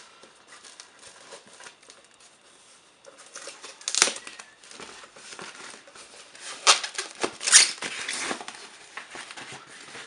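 Rustling and crinkling of a foam wrapping sleeve being pulled off a small boxed NAS unit by hand, with a sharp crackle about four seconds in and several louder crackles between about seven and eight seconds in.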